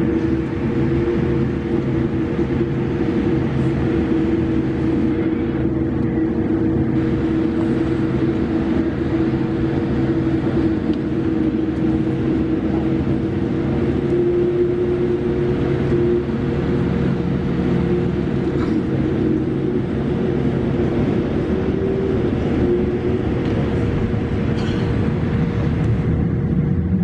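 Cabin noise inside a Boeing 787-8 Dreamliner taxiing: a steady hum from the engines near idle and the cabin systems. A few steady whining tones sit on top, one of which rises slightly in pitch a couple of times.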